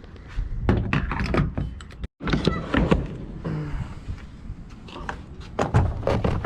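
A run of clunks and knocks from handling at a fuel pump and vehicle during a fill-up, with a brief dropout about two seconds in.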